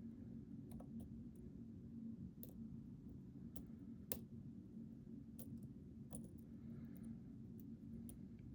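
Irregular light clicks of a lock pick working the pins of a Mul-T-Lock Interactive LFIC core, with one sharper click about four seconds in, over a faint low hum.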